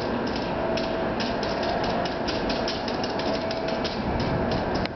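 NJ Transit Multilevel electric train rolling close by: rapid, irregular clicking from the wheels over a steady hum.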